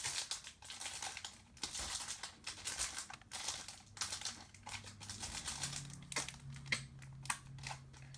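Foil wrapper of a Pokémon trading-card booster pack crinkling as it is handled, in irregular bursts with a few sharp clicks near the end.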